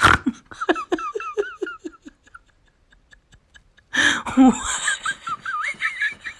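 A dog howls in a wavering, warbling pitch in two bouts, the second starting about four seconds in, while a person laughs along.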